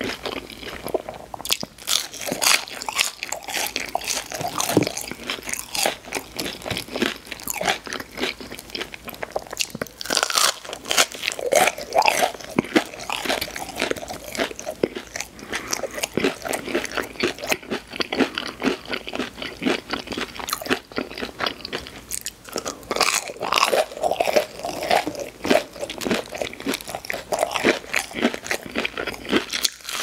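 Close-miked mouth sounds of a person biting and chewing crispy fried chicken nuggets and fries: continuous, irregular crunching with no talking.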